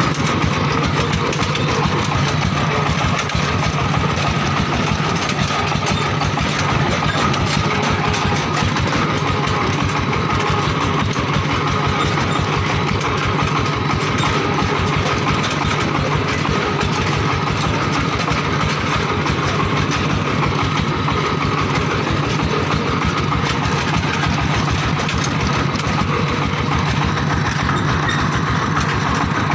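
Single-cylinder diesel engine of a công nông farm tractor running steadily with a rapid, even beat as the tractor drives along a muddy dirt road.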